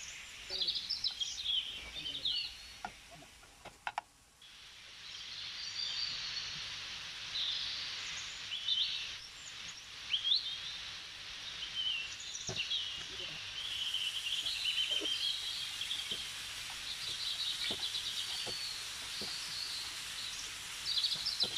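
Birdsong from a nature sound-effect track: several small birds chirping and trilling, with a short break about four seconds in. A few faint knocks are heard under it.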